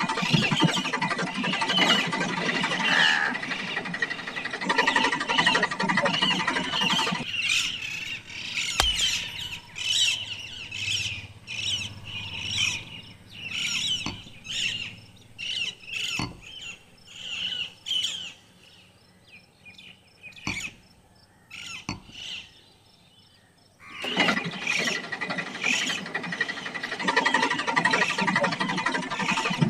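Small electric motors of homemade toy tractors whirring steadily, stopping about seven seconds in and starting again near the end. In the quieter stretch between, chain links clink as they are handled, over short high chirps that sound like small birds.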